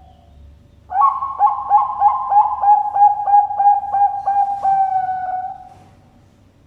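Zebra dove (perkutut bangkok, the Thai-bred song line) singing one full phrase: about a dozen quick cooing notes, roughly three a second, ending in a longer drawn-out note.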